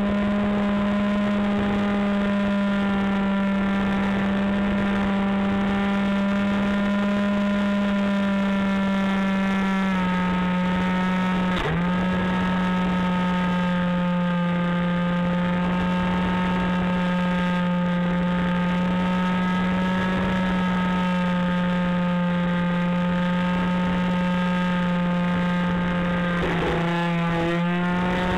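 Electric motors of an FPV radio-controlled aircraft in flight: a steady, loud, high whine. It dips sharply once about a third of the way in, and its pitch steps down a little around then and again near the end.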